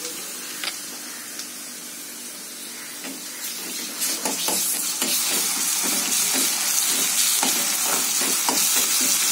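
Browned onions and ginger-garlic paste frying in hot oil in a black kadai, a steady sizzle that gets louder about four seconds in. A steel spatula scrapes and taps against the pan in quick clicks as it stirs.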